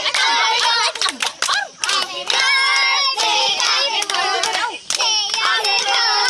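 A group of children clapping their hands while singing together in high voices.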